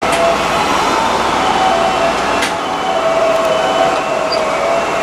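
Cab of a Tobu 8000 series electric train standing still, with a steady hum of onboard equipment and a few faint steady tones. About halfway through there is a sharp click, and the low rumble drops away at the same moment.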